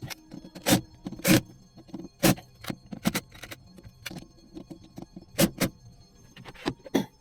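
Irregular sharp clacks and knocks of hard objects being handled and set down during hand work on an electrical switch fitting, the loudest a pair about a second in.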